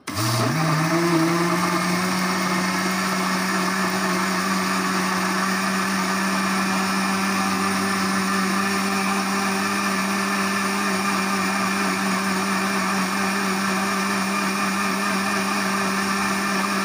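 Electric countertop blender running, blending a jar full of banana, milk, yogurt and cream into a milkshake. The motor spins up quickly, its pitch rising over the first half second, then holds one steady high-speed whine.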